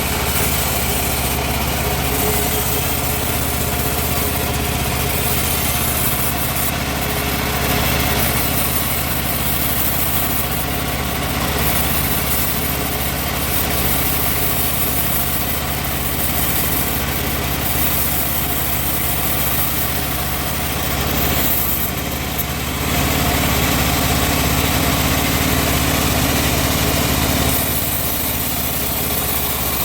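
Engine-driven wood-sawing machine running steadily while teak is sawn. About two-thirds of the way through its sound dips briefly, then runs a little louder and lower.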